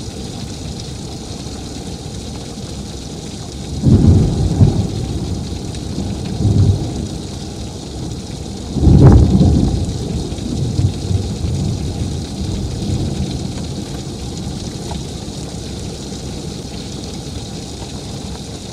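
Heavy rain pouring steadily, with two loud thunderclaps about four and nine seconds in, each trailing off into rumbling. The second clap starts with a sharper crack.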